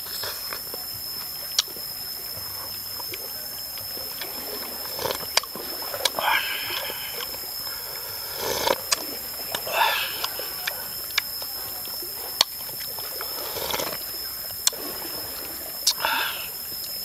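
Eating sounds: soup slurped and sipped from a ceramic bowl in several short bursts a few seconds apart, with sharp clicks of wooden chopsticks against the bowl. A steady high tone runs underneath.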